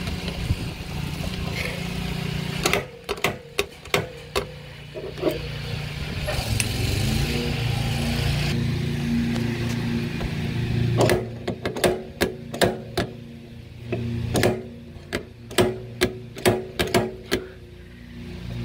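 Electric dent puller working a thick car body panel: sharp metallic clicks and knocks, a few about three to five seconds in and a quick irregular run of them from about eleven seconds on, over a steady hum that rises in pitch about seven seconds in.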